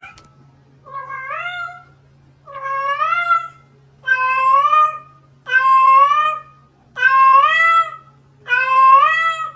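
Domestic cat meowing six times in a regular series, about one call every one and a half seconds. Each meow is long and rises in pitch, and the first four get louder. A faint steady hum lies underneath.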